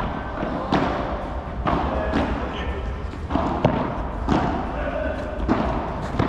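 A padel rally: the ball is struck by rackets and bounces on the court in a string of sharp hits, at uneven spacing of about half a second to a second.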